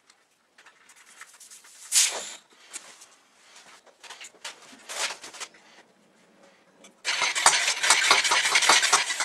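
A bicycle's rear wheel handled and spun by hand: a few scattered knocks, then from about seven seconds in a loud, dense rattle of rapid clicks as the wheel turns.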